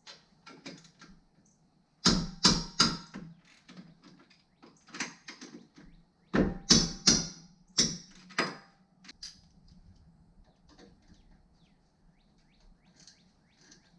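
Hand tools and metal parts being handled: two bursts of sharp clanks and knocks, several with a short metallic ring, followed by lighter scattered taps.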